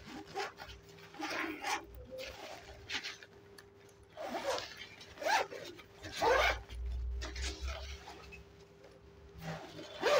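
A backpack zipper being pulled open by hand in a series of short strokes, the slider rasping along the teeth and running smoothly, with the nylon fabric rustling as it is handled.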